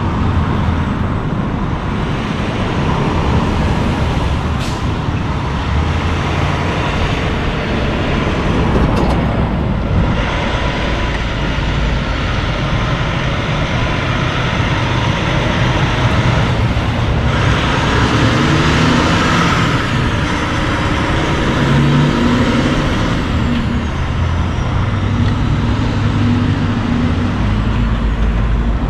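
A Kenworth long-hood conventional semi-truck pulling a dry-van trailer drives slowly past with its diesel engine running. The engine pitch shifts in steps as the truck goes by, over steady road and traffic noise.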